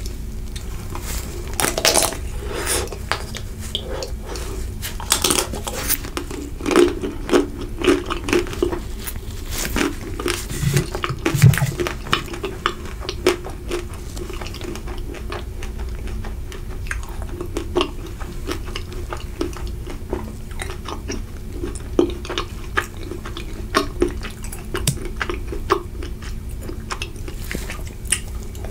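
Biting and chewing a chocolate-coated Magnum ice cream bar close to the microphone: the hard chocolate shell cracks and crunches in many sharp crackles, with chewing in between.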